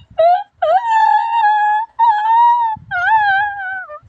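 A series of four high-pitched howls: a short one, then three long drawn-out ones with wavering pitch, the last sliding down at its end.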